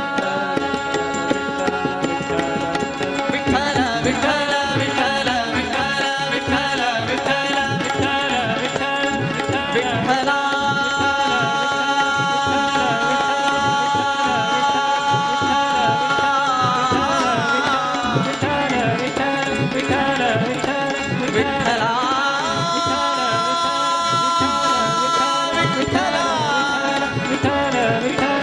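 Live Indian devotional bhajan: male voices singing long held notes with ornamented pitch glides, accompanied by harmonium and tabla beating steadily throughout.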